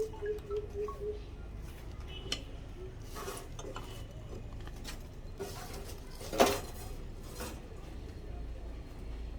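Scattered metallic clinks and knocks from tools and parts being handled, with one louder knock about six seconds in, over a low steady hum. A quick run of short low tones sounds in the first second.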